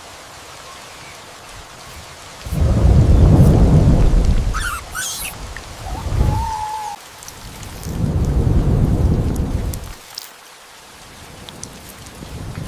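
Steady rain falling, with two long rolls of thunder, the first about two and a half seconds in and the second about eight seconds in, and a shorter rumble between them. A brief whistle-like call sounds about six seconds in.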